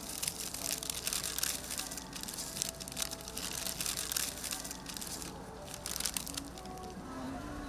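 Paper wrapper crinkling as it is handled, a dense irregular crackle that thins out about six and a half seconds in, over faint background music.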